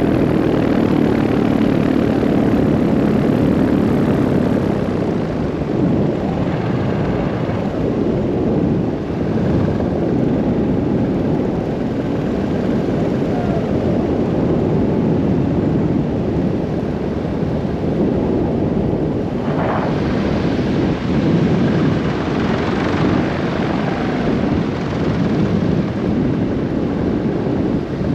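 Paramotor engine and propeller running in flight, with air rushing over the microphone. The engine's steady drone is clear for the first few seconds, then its tone fades back under the rushing noise.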